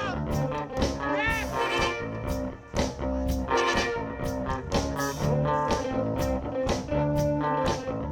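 Live soul-funk band playing an instrumental passage: an electric guitar takes a lead line with bent notes over bass and a steady drum beat.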